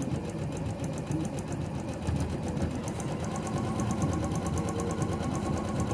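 Janome electric sewing machine stitching a straight seam through layered quilting cotton at a steady speed, the needle mechanism making a rapid, even ticking.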